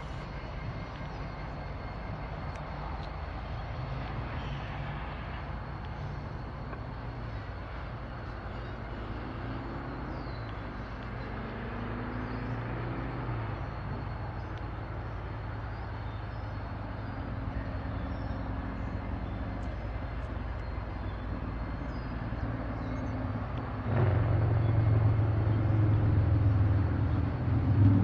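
Diesel freight locomotive engine running at low throttle as it approaches slowly at the head of a double-stack intermodal train, a steady low rumble. Near the end the engine note steps up suddenly and gets louder.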